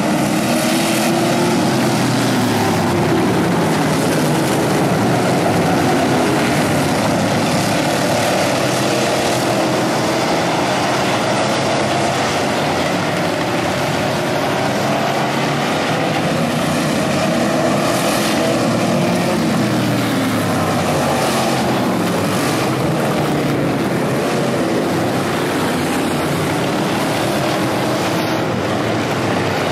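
A field of street stock race cars running laps on a dirt oval. Their engines swell and fade, the pitch rising and falling over and over as the cars pass and circle the track.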